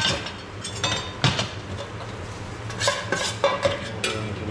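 Utensil clinking and scraping against a pan as dried macaroni snacks are mixed with salty-spicy seasoning. A few separate clinks come first, then a quicker run of clattering near the end.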